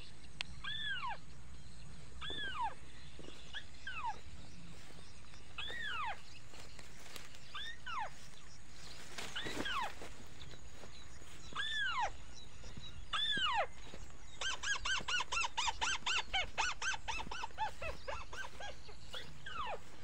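Rail ('burung tikusan') calls: sharp squeaky notes that swoop steeply downward, one every second or two, then a quick run of about four a second for several seconds near the end.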